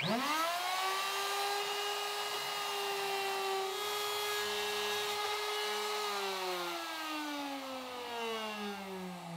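Plunge router switched on, its motor whine rising quickly to full speed, then running steadily while cutting a shallow hinge mortise through a jig. About six seconds in it is switched off and its pitch falls steadily as the bit winds down.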